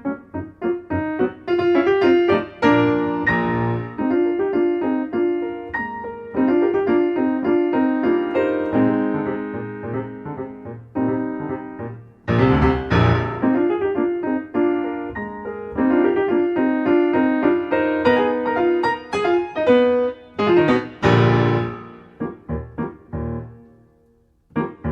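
Solo piano music, played in phrases with short pauses between them.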